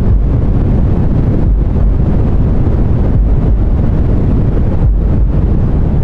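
Deep, bass-heavy white noise of a sleep track: a steady, loud rumble, dipping briefly every second and a half or so.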